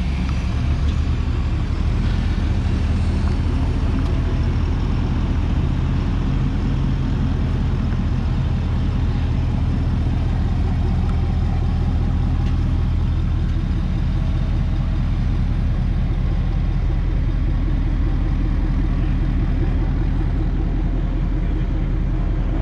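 A car engine running steadily at an even, low pitch, its speed barely changing.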